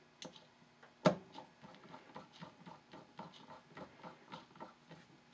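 A screwdriver turning a screw in the steel frame of an 1851 Colt Navy revolver: a sharp metal click about a second in, then a run of light ticks and scrapes, a few a second, as the screw is driven.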